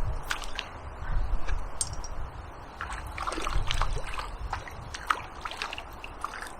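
Water splashing and sloshing close by, with irregular ticks and low thumps.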